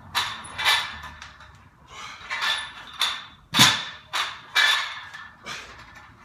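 A person breathing hard and fast mid-workout, about nine sharp breaths, while holding a loaded barbell between squat-clean reps. The loudest and deepest comes about three and a half seconds in.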